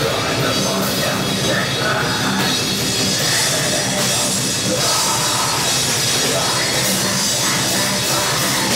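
Metalcore band playing live: distorted electric guitars and a drum kit, loud and unbroken.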